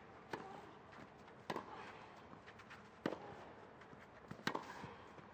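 Tennis ball struck back and forth with rackets in a baseline rally: four sharp hits about a second and a half apart, each with a short echo.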